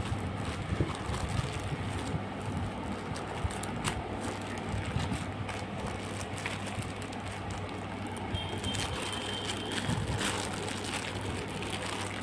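Plastic courier mailer bag crinkling and tearing as it is pulled open by hand, with scattered rustles and clicks over a steady low hum.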